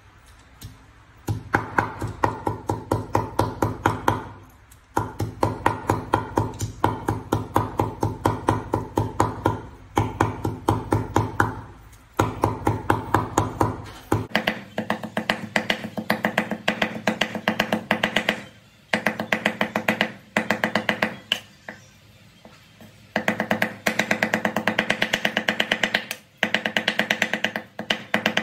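Cleaver rapidly mincing raw fish on a wooden chopping board: fast, even chops, several a second, in runs of a few seconds with short pauses between them. Each chop lands as a knock with a clear ringing pitch.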